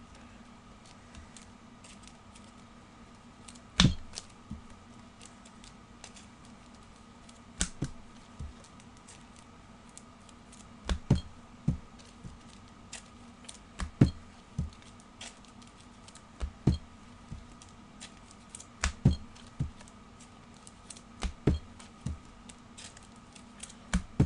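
Irregular sharp clicks and taps, roughly one every second or two and a few louder than the rest, over a faint steady hum.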